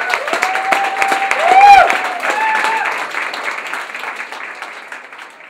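Audience applauding, with whoops and cheering voices over the clapping. The loudest cheer comes about a second and a half in, then the applause fades away toward the end.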